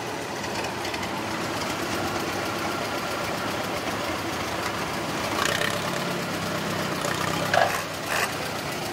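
Antique tractor engine idling as a McCormick Farmall H four-cylinder rolls up slowly, its steady engine note growing stronger about halfway through as it comes close. A few short knocks sound near the end.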